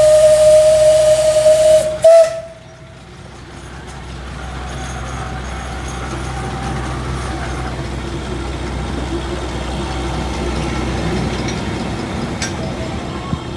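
Steam whistle of Alishan Forest Railway Shay No. 25, a geared steam locomotive, blowing one long steady blast that stops about two seconds in with a short final toot. A steady low rumble with faint hiss follows and slowly grows louder.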